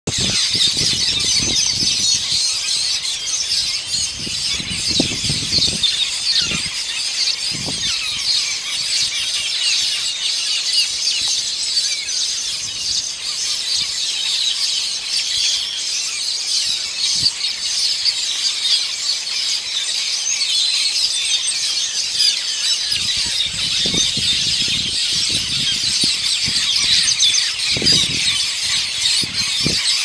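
A large colony of metallic starlings calling from their nesting tree: a dense, high-pitched, nonstop chatter of many overlapping calls.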